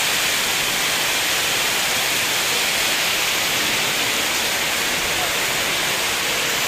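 Torrential rain pouring down in strong wind: a steady, dense hiss.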